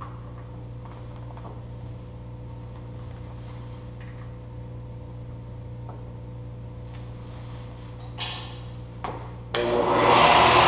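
A few light metal clicks from a drill chuck being fitted on a Shopsmith's headstock spindle, over a steady low hum; about a second before the end the Shopsmith's motor switches on and runs loudly and steadily.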